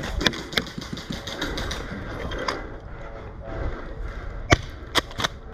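Airsoft guns firing: scattered sharp cracks, a short rapid burst about a second in, and three loud single shots near the end, over a low rumble.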